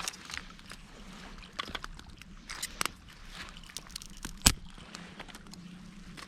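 Dry twigs crackling and snapping in scattered irregular clicks, with one sharp, much louder snap about four and a half seconds in.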